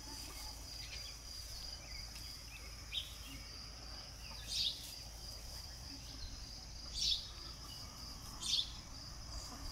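Crickets trilling in one steady high note, with four short, high chirps spaced about one and a half to two and a half seconds apart.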